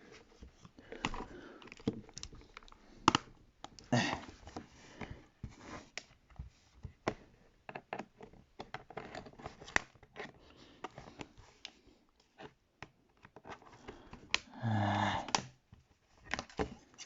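Irregular clicks, taps and scrapes of hands and tools working on a tablet's plastic casing and internal parts during a teardown. A short, loud, low-pitched hum stands out briefly near the end.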